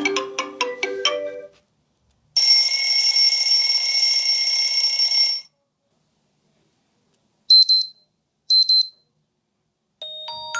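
Xiaomi 12X ringtones played in turn: a chiming melody ends in the first second and a half, then a steady electronic buzzing ring tone sounds for about three seconds, followed by two short high beeps about a second apart, and a new chiming melody begins near the end.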